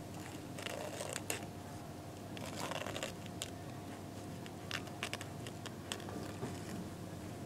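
Male Japanese rhinoceros beetle (Trypoxylus dichotomus) stridulating with his abdomen during mating: weak, scratchy chirps at irregular intervals, the strongest about a second in and near the three-second mark, with scattered sharp clicks.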